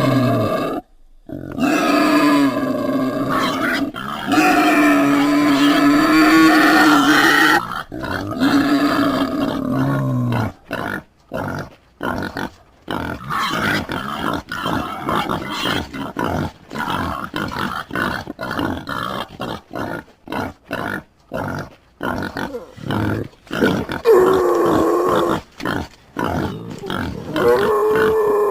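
Pig vocalising: long drawn-out pitched calls over the first ten seconds or so, then a run of short, rapid grunts, then longer pitched calls again near the end.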